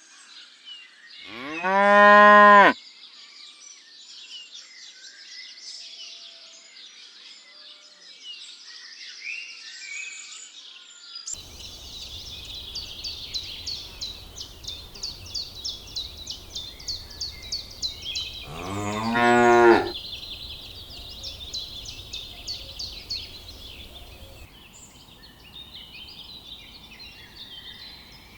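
Cattle mooing twice: a loud, fairly high moo about two seconds in and a deeper, shorter one around two-thirds of the way through. High chirping runs throughout, with a fast repeated chirp in the middle.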